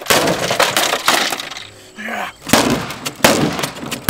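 A television set being smashed: a loud crash right at the start with breaking and rattling debris for about a second and a half, then two more sharp crashing blows about two and a half and three seconds in.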